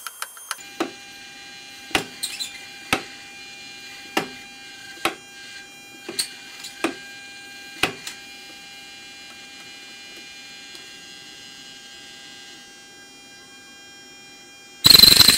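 Servo-driven mechanism of a vintage Smith sensitive altimeter humming steadily and clicking irregularly, about a dozen ticks over the first eight seconds, as its needle and counter drums follow the changing test pressure. A loud harsh noise starts abruptly just before the end.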